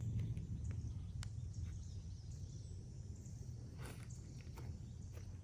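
Outdoor background noise: a steady low rumble with a few faint clicks, and one brief hiss about four seconds in.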